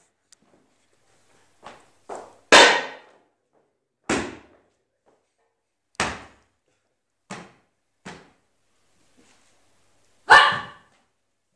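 A series of about eight short, sharp shouts, a second or more apart, with the loudest about two and a half seconds in and near the end.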